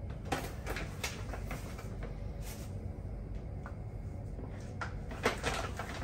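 A plastic food pouch being handled and its powder measured out: a scattering of short clicks and rustles, the loudest cluster about five seconds in, over a steady low hum.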